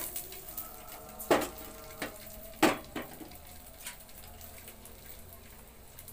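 Sausages sizzling quietly in a grill pan over a gas burner, broken by several sharp knocks, the two loudest about a second and a half apart.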